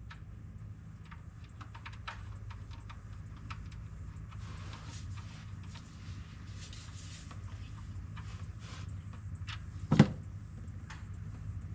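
Scattered light clicks and taps of hand tools on metal while a starter motor is unbolted from under a car, with one sharp knock about ten seconds in, over a steady low hum.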